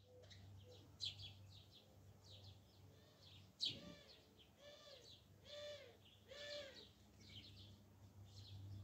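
Small birds chirping and twittering, faint and repeated throughout, with three louder short arching calls in a row about halfway through. A single sharp click a little over three seconds in, over a faint steady low hum.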